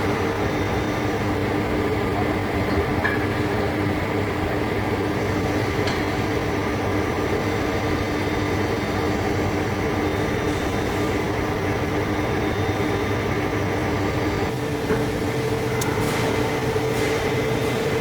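Heavy-duty lathe turning a large steel part, running with a steady mechanical hum. A few light clicks come near the end.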